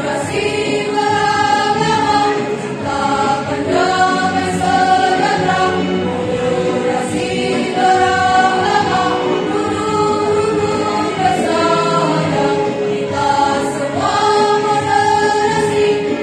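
Women's choir singing together, holding long notes in phrases of a few seconds each.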